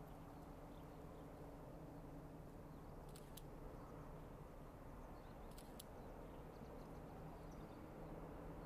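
Distant train hauled by two diesel locomotives: a steady low engine drone under a soft wash of running noise, slowly growing louder near the end. Two pairs of faint sharp clicks sound in the middle.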